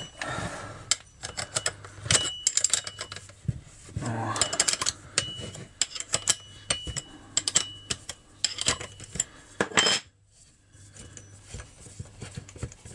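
Metal clinking and knocking, many sharp clicks in quick succession with a short ring, as the centrifugal clutch of a Patriot 4518 chainsaw is worked loose with a grinder spanner wrench and turned off its left-hand thread by hand. The clicking dies down to a few quieter knocks after about ten seconds.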